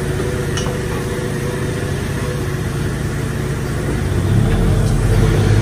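An engine running steadily with a low hum, growing louder about four seconds in.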